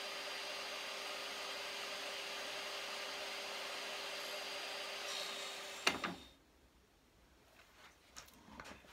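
Table saw motor running steadily with a constant whine, then cut off abruptly about six seconds in. Afterwards, a few faint handling clicks.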